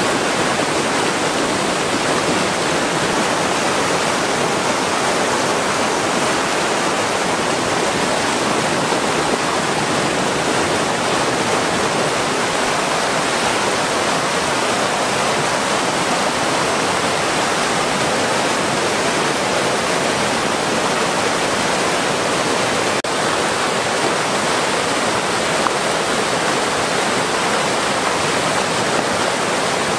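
River rapids: whitewater rushing steadily over rocks.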